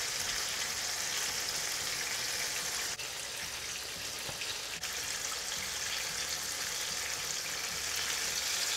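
Battered paneer sandwich pakoras deep-frying in hot sunflower oil in a kadhai, the oil sizzling steadily.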